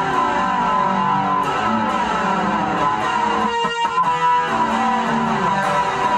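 Guitar playing a tune as a steady stream of picked notes, with a short break about three and a half seconds in.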